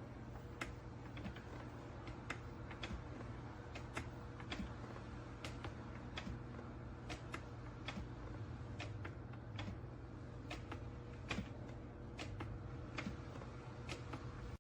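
Faint, sharp clicks at irregular spacing, roughly one or two a second, over a steady low hum.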